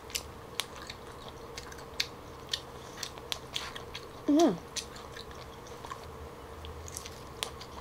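Close-miked chewing of smoked turkey leg, with many short wet mouth clicks and smacks scattered throughout. There is a brief falling voiced "mm" about four seconds in, over a faint steady hum.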